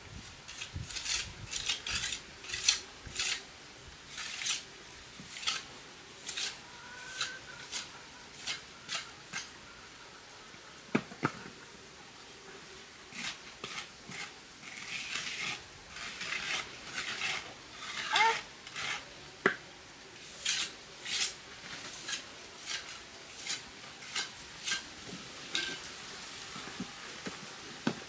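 Repeated short scraping strokes, about one or two a second, with a pause near the middle and a single sharp knock about eleven seconds in.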